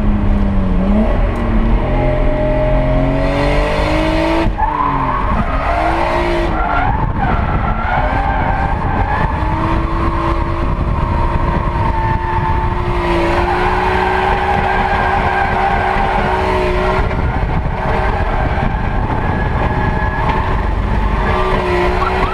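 Nissan Skyline R32 GTS-4 engine revving hard through a drift, heard from inside the cabin, with tyres squealing as the car slides. The engine pitch swings up and down with the throttle early on, then holds high through a long slide in the middle.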